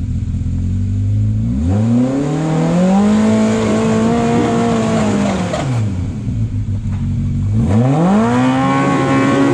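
Side-by-side off-road buggy's engine idling, then revved up twice, each rev held for a couple of seconds and falling back, as the driver bumps the throttle to climb a rock ledge.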